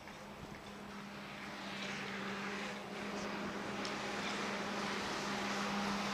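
Distant engine drone that grows gradually louder over several seconds, with a steady low hum underneath.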